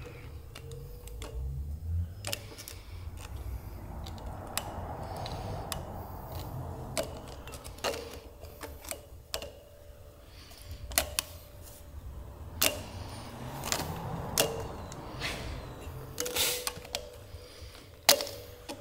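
Irregular light metallic clicks and clinks of a copper cylinder head gasket being worked down over the steel head studs onto the engine block.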